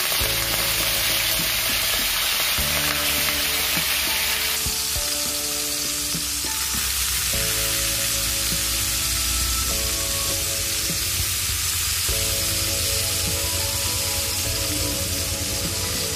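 Chicken pieces sizzling and spattering in a frying pan of oil that is too hot. The sizzle is a steady hiss that softens a little about four and a half seconds in.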